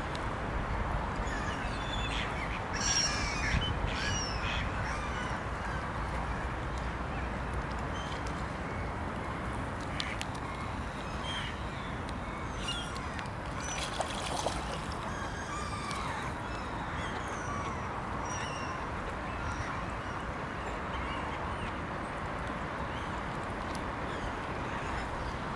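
Waterfowl pond ambience: a steady background hiss and low rumble with scattered short bird calls, mallard quacks among them. The calls are busiest around three seconds in and again from about twelve to sixteen seconds.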